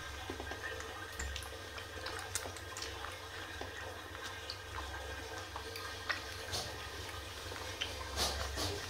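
Tiny kitten suckling milk from a nursing bottle, with small wet clicks and smacks coming irregularly over a low steady hum. A few louder breathy puffs come near the end.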